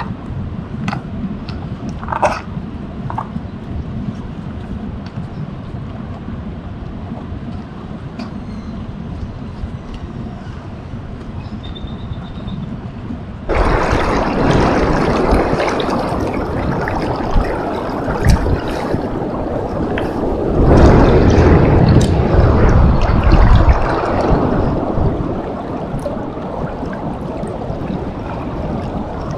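River current rushing and lapping at the bank, becoming suddenly much louder about halfway through, with low rumbling from wind on the microphone that peaks shortly after.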